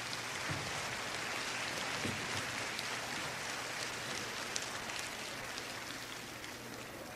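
Audience applauding in a concert hall after the band's final chord, at its fullest early on and slowly fading.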